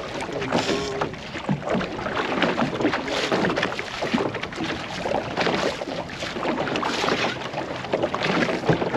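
Small aluminum boat on choppy water: waves slap irregularly against the hull while wind buffets the microphone. No steady motor note stands out.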